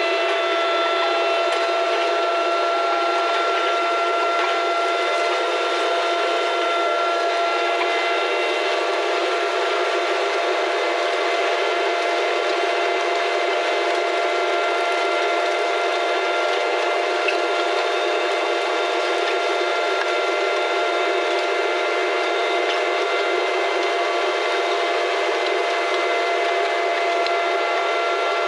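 Steady mechanical whine with a hiss underneath, several fixed pitches holding without change throughout.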